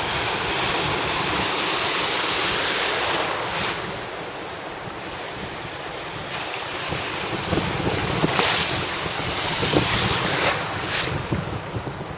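Small surf breaking and washing up the beach, with wind gusting on the microphone. The wash eases about four seconds in and builds again later with a few sharper gusts.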